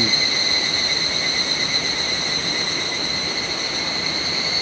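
Insects in the trees droning steadily, one constant high-pitched whine over an even background hiss.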